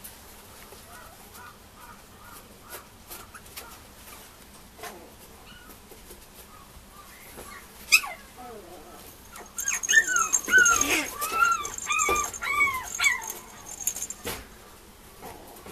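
Mame shiba puppy whining, soft at first, then from about two-thirds in letting out a loud string of high, arching whimpers and yelps. A single sharp click comes just before the loud cries.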